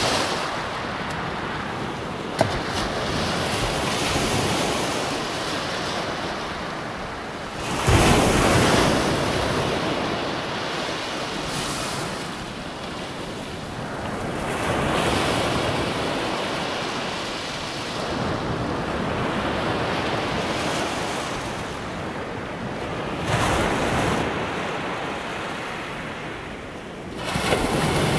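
Sea waves breaking and washing up and back on a stony shingle beach, swelling and fading in surges, the biggest about eight seconds in. A single sharp click a little over two seconds in.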